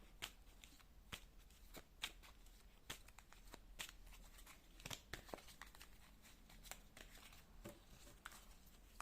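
Tarot cards being shuffled by hand: faint, scattered card clicks and rustles, one or two a second.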